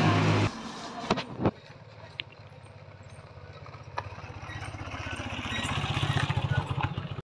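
A loud low hum stops half a second in, followed by a few sharp knocks. Then a motorcycle engine runs with a low, pulsing note, growing steadily louder as the bike approaches, before cutting off abruptly near the end.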